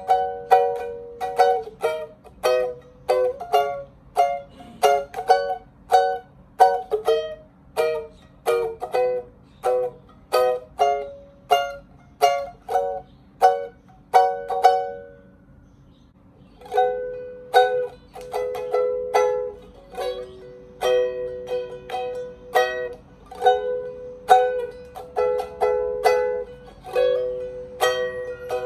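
Beyond UK-17 pocket ukulele with a red pine veneer body, tuned B E Ab C#, played solo: a run of short, bright plucked chords that fade quickly. The playing stops briefly about halfway through, then goes on.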